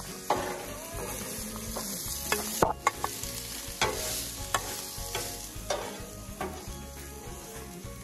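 Chicken, peppers and onions sizzling on a Blackstone flat-top propane griddle, with a metal spatula scraping and tapping on the griddle top as the food is scooped into a pan.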